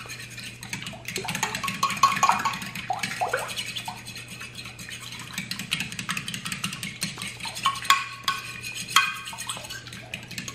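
A fork beating eggs and milk in a glass baking dish, with quick, uneven clicking and scraping of the fork against the glass.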